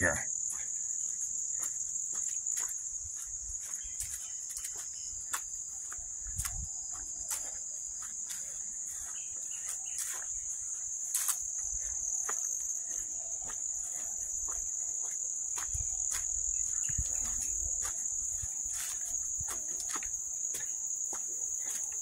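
Insects in the summer woods keep up a steady high-pitched drone, with the walker's footsteps on a dirt and grass trail as soft irregular steps.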